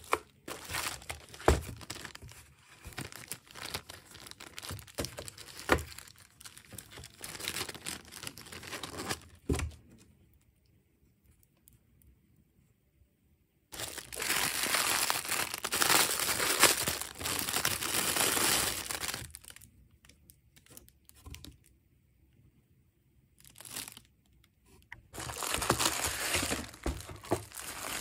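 Plastic packaging bags crinkling and rustling as items are handled in a cardboard shipping box, with sharp clicks and taps in the first part. It goes quiet for a few seconds, then comes loud crinkling about halfway through, a pause, and more crinkling near the end.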